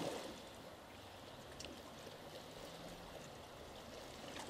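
Faint lake water lapping and splashing against a wooden dock and the shore rocks, an even watery wash with a faint low hum underneath.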